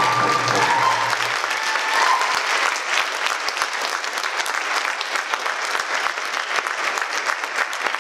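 Audience applauding, a dense patter of many hands clapping, with voices calling out over the first couple of seconds.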